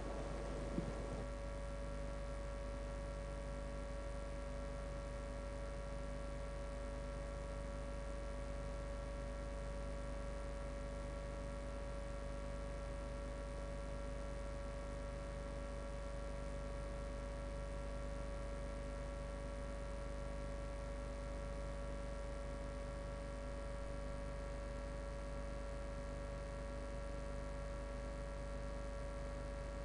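A steady electrical hum and buzz, one tone standing out above several fainter steady tones, with no change in pitch or level. A small click about a second in.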